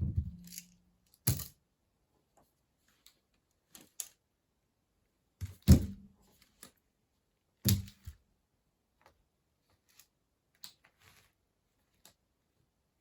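A series of irregular knocks and clunks, some with a brief low ring, with light clicks between, like hard objects being handled and set down.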